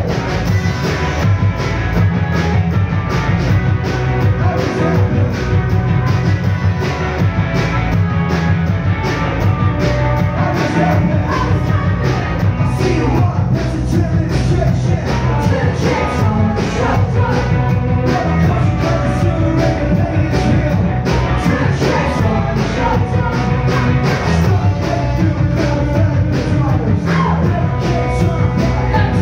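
Rock band playing live and amplified: electric guitars, bass and a steady drum beat, with a voice singing over them.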